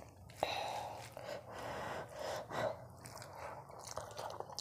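A bare hand mixing and squishing soft, starchy boiled rice on a steel plate, in irregular strokes with breaths between them, and a sharp click about half a second in.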